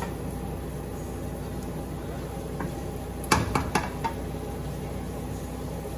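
Onions, garlic and ginger sautéing in a wok with a steady sizzle, and a quick cluster of metal clanks, a utensil against the wok, about three and a half seconds in.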